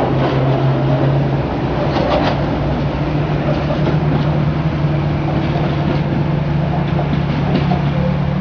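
1938 tube stock electric train pulling away from the platform and running off down the line, with a steady low hum that steps up slightly in pitch about a second and a half in, and a few clicks around two seconds in.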